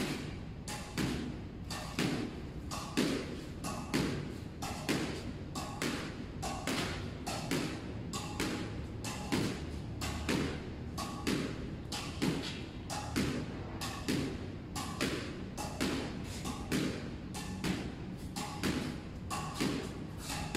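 Squash racket volleying a squash ball against a concrete wall: racket strikes and wall hits alternate in a steady rhythm of about two a second.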